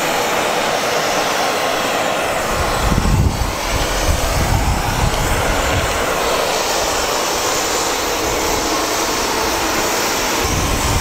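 Steady, loud rushing of aircraft engines running on an airport apron. Low rumbles of wind on the microphone come through about three seconds in and again near the end.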